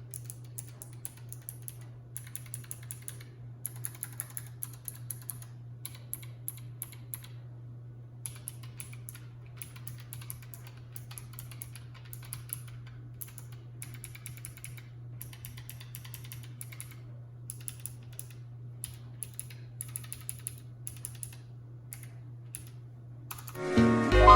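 Typing on a Keychron K1 wireless mechanical keyboard with clicky blue switches: a fast, irregular run of key clicks, over a steady low background hum. Music comes in loudly near the end.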